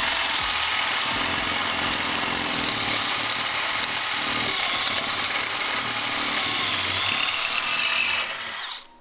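Cordless drill with a stepped drill bit boring a hole through a metal ECU case held in a vise, running steadily and cutting off shortly before the end.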